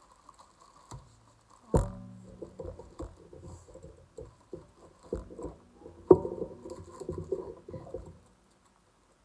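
Aluminium camera tripod being handled and taken out of its plastic bag: a run of knocks and rattles with two sharp, loud knocks about two and six seconds in, stopping about eight seconds in.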